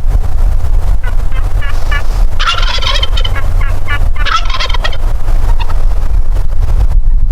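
Wild turkey gobbling twice, two loud rattling bursts about two seconds apart, after a run of short, evenly spaced call notes. A steady low rumble of wind on the microphone runs underneath.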